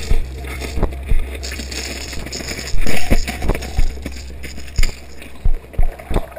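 Underwater camera lowered through an ice hole: a steady low hum and faint hiss, broken by about a dozen irregular dull knocks.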